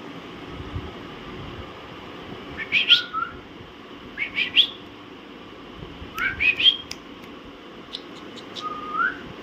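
Alexandrine parakeets giving short, rising whistled calls in four quick bursts a second or two apart.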